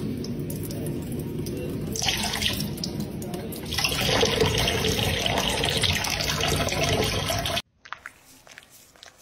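Kitchen tap running, a thin stream of water splashing onto a cat's head and into a steel sink. It gets louder about four seconds in, then cuts off abruptly near the end.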